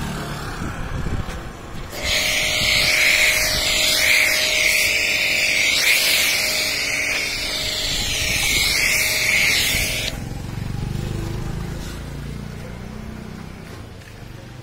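Pressure washer jet spraying: a loud, steady hiss that starts suddenly about two seconds in and cuts off abruptly some eight seconds later, with a steady hum under it.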